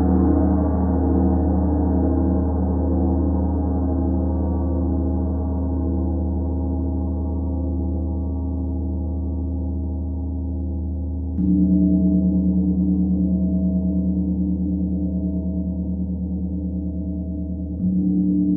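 32-inch Starchild gong struck softly with a felt mallet, ringing with a deep hum and many overtones that slowly die away. It is struck again about eleven seconds in and once more near the end.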